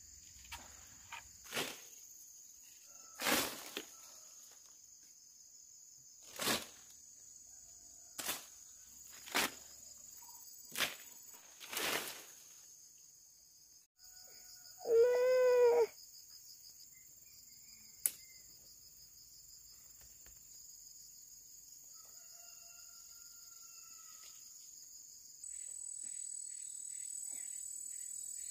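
Steady high drone of insects, broken in the first half by about seven sharp snaps of branches cracking as a long pole pulls them down to reach mac khen fruit clusters. About halfway a short pitched call sounds for about a second, and near the end the insect drone grows louder.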